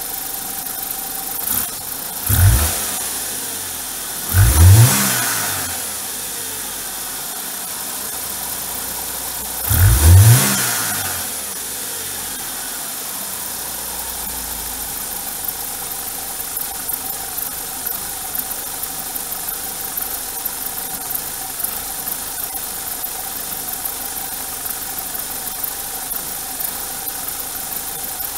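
BMW N42 1.8-litre four-cylinder Valvetronic engine running, its speed surging up and back down three times in the first ten seconds and then settling into an uneven idle. The owner takes the uneven idle to be probably caused by old adaptations stored in the ECU.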